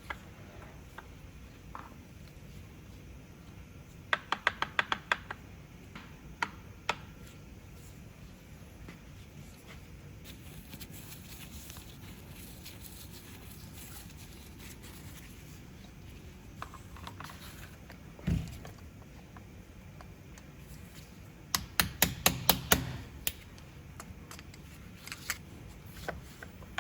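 Quick runs of sharp clicks and a single duller knock from small tools and metal parts being handled, as an angle grinder is worked on by hand.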